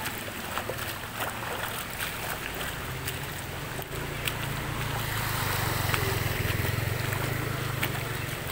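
Fast-flowing floodwater from a river overflowing after heavy rain, rushing across a road as a steady wash. A low rumble swells from about four seconds in, then eases slightly near the end.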